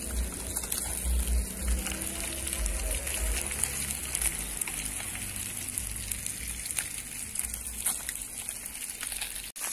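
Fish frying in hot oil in a pan over a wood fire: a steady sizzle with small crackles and a low rumble underneath.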